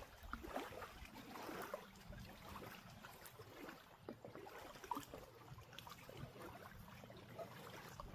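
Faint outdoor background noise with scattered soft ticks and light splashy sounds.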